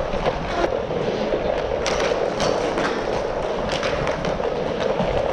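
Inline skate wheels rolling on plastic sport-court tiles, a steady rumble with sharp clacks of hockey sticks and puck scattered through it at irregular intervals.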